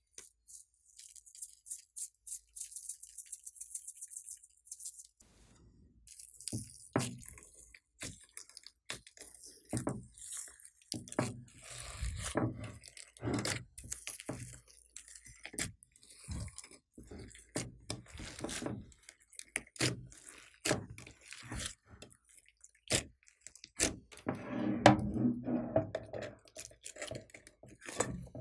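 White slime with foam beads kneaded and pressed by hand: many short wet pops and clicks, with crunching of the beads. It opens with a few seconds of thin, high crackling, and a denser, louder stretch of squishing comes near the end.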